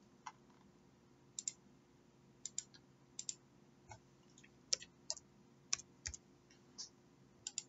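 Faint clicks of a computer mouse and keyboard, about a dozen scattered through, many coming in quick pairs like double-clicks.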